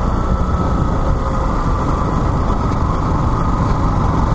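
Yamaha XTZ 150 single-cylinder motorcycle riding along at steady speed, its engine running under the steady rumble of wind and road noise on the rider's camera microphone.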